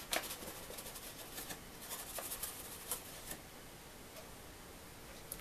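Melted butter crackling faintly in a saucepan on low heat: a quick scatter of small ticks that thins out after a few seconds, with a few sharper clicks.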